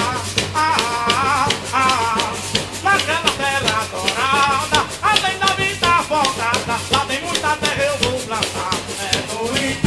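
Live Afro-Brazilian percussion music: a shaker keeps fast, even strokes over hand drums, with singing voices over the top.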